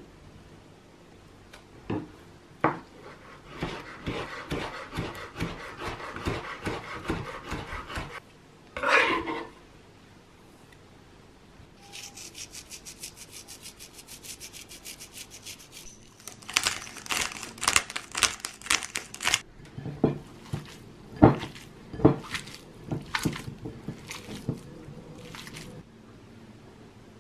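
A kitchen knife chops chives on a wooden cutting board in fast, even strokes, and the chopped chives are scraped off with one brief scrape. Fine, quick ticking follows as salt and pepper go in. Irregular thumps and squelches come last as the minced beef is mixed in a glass bowl.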